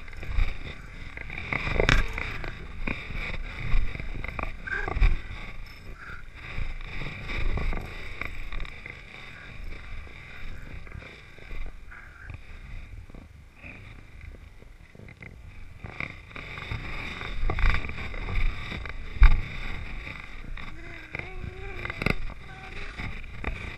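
Muffled rubbing and irregular knocks from a GoPro strapped to a dog's back, jostled against fur and harness as the dog moves through snow.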